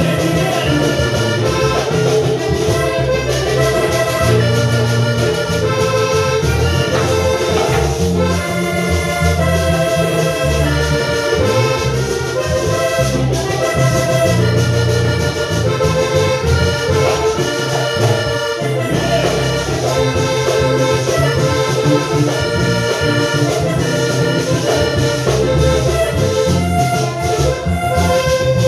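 Loud instrumental music: a melodic lead over a steady bass line, with no singing.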